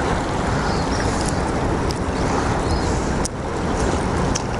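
Steady rush of river water flowing below a dam, with a few faint clicks.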